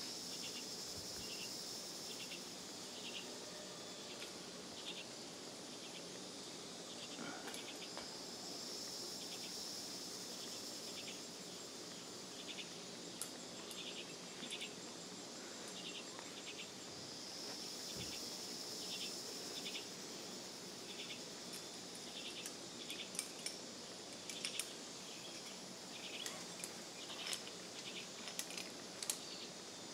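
Insects chirping and buzzing, a high buzz swelling and fading three times among short repeated chirps. In the second half, light sharp metallic clicks and jingles.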